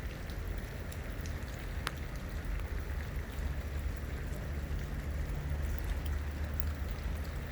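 Steady rain falling, with a low rumble underneath and a single sharp click about two seconds in.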